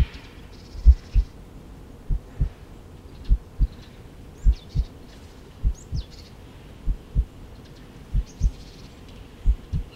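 A slow heartbeat: paired low thumps, lub-dub, about every 1.2 seconds. Faint bird chirps sound above it.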